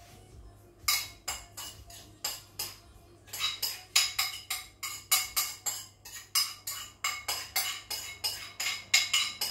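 Sharp knocks of a small bowl being tapped and scraped against a ceramic mixing bowl to empty grated apple into cake batter: a few irregular knocks at first, then a steady run of about three a second.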